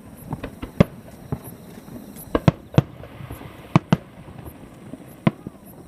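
Fireworks shells bursting far off: a string of sharp bangs, about eight, some coming in quick pairs, with short gaps between them.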